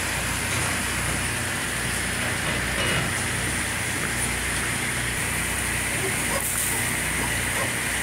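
Steady drone of running machinery: a low hum with an even hiss over it, unchanging throughout.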